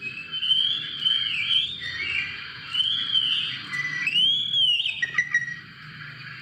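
Young Oriental magpie-robin (kacer) singing: three loud, arching whistled phrases, with a few sharp ticks about five seconds in.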